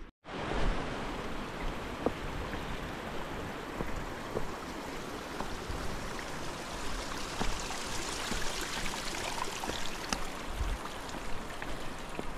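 Rushing mountain stream, a steady hiss of water that starts abruptly after a moment of silence, with occasional footsteps on a stone path.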